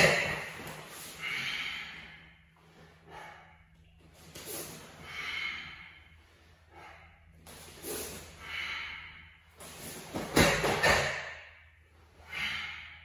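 A Goju-ryu karateka's forceful breathing through the kata Seisan: short, hard, hissing exhalations every second or two in time with the techniques, with sharp snaps at the very start and about ten seconds in, the loudest sounds.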